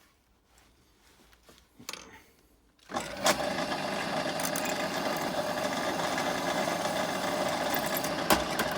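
Electric drill starting up about three seconds in and running steadily as it bores a hole through a steel strut, after a few light handling knocks; a sharp knock near the end.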